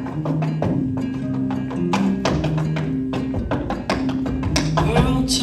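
Recorded backing music with held instrumental notes. Sharp, quick taps from hard dance shoes strike a wooden stage floor over it.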